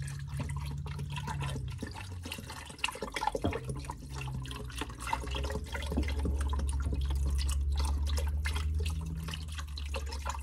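Chicken broth glugging and splashing as it pours from a carton into a crock pot, over a low steady hum.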